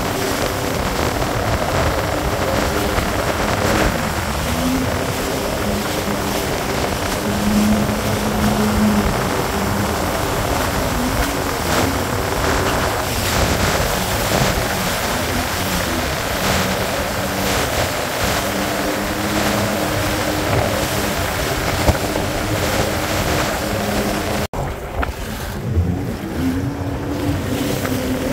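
Jet ski engine running out on the sea, its pitch rising and falling with the throttle, over rushing wind and water noise. The sound cuts abruptly about three-quarters of the way through, and the engine carries on with less hiss.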